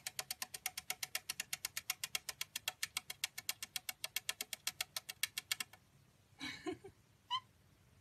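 White-bellied caique making a rapid, even clicking, about seven clicks a second, which stops near the end; then two short squeaky calls.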